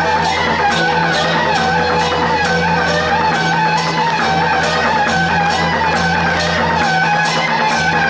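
Loud processional music from loudspeakers, with a steady beat and a wavering high melody over steady low tones.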